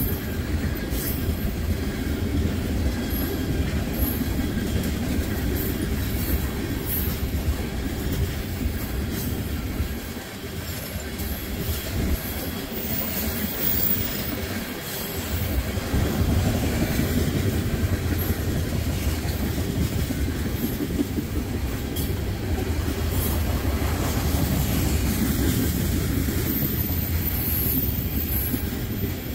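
Freight train of ethanol tank cars rolling steadily past a grade crossing, the wheels clacking over the rail joints with brief high wheel squeals now and then. The rumble eases for a few seconds about halfway through.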